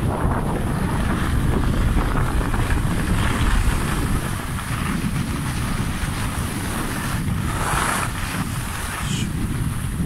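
Wind rushing over a smartphone microphone during a downhill ski run, with the steady hiss of skis sliding on snow and a brief louder hiss about eight seconds in.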